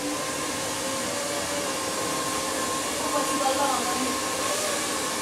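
Hand-held hair dryer running steadily, giving a constant rush of air with a steady motor whine.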